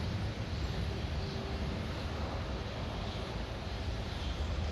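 Boeing 747 jet engines heard as a steady low rumble with hiss on landing approach, mixed with wind buffeting the microphone.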